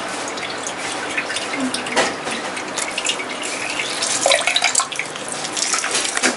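Lemon half squeezed in a hand-held metal lemon squeezer, juice trickling and dripping into a steel bowl of guava juice, with small metallic clicks of the squeezer over a steady watery hiss.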